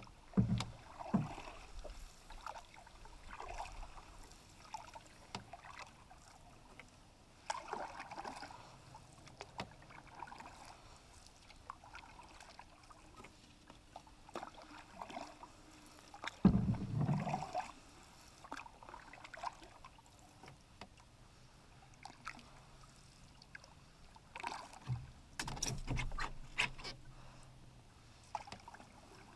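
Canoe being paddled on calm water: soft paddle swishes and drips recurring every few seconds, with louder knocks and thumps about half a second in, around the middle, and again near the end.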